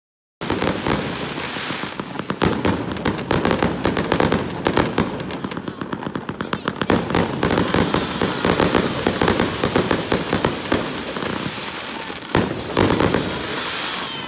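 Aerial fireworks going off in a dense, rapid barrage of bangs and crackles. It starts abruptly about half a second in and begins to fade near the end.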